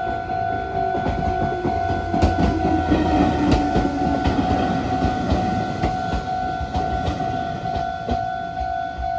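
Level-crossing alarm ringing steadily as a Meitetsu Bisai Line train passes over the crossing. Its wheels rumble and clack over the rail joints, loudest about two to five seconds in.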